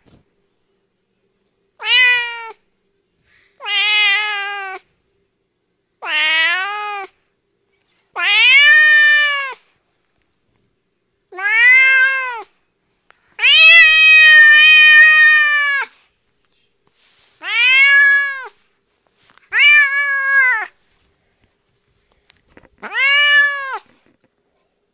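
Domestic cat meowing: nine separate drawn-out meows with short silences between, each rising and then falling in pitch, the longest about two and a half seconds near the middle.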